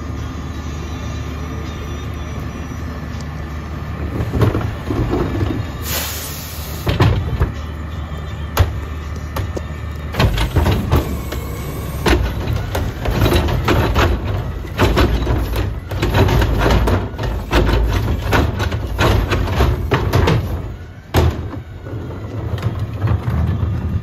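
Mack LEU front-loader garbage truck's diesel engine running steadily. From about four seconds in, its Pacific Carry Can's lift arm tips a wheeled cart into the can, with repeated clanks and bangs of the cart and falling trash, until just before the end.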